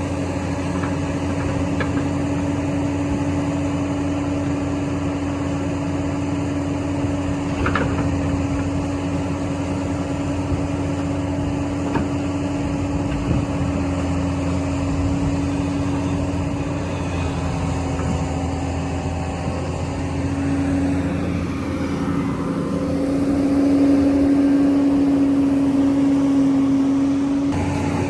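Heavy diesel construction machinery running steadily, with a few faint knocks. The engine grows louder for several seconds near the end.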